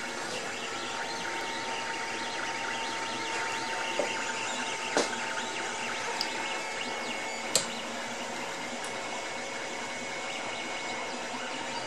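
Creality Ender-2 FDM 3D printer running a print: stepper motors whirring in short, shifting tones over steady fan noise. A few sharp clicks come between four and eight seconds in, the loudest about seven and a half seconds in.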